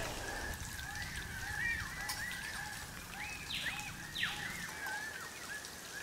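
Birds calling in rainforest: many short, repeated chirping notes, with two brief hissy calls a little past the middle.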